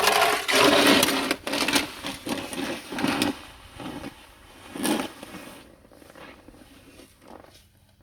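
Snow shovel scraping and pushing snow in a series of irregular strokes, the longest and loudest in the first second and a half, then shorter scrapes that fade toward the end.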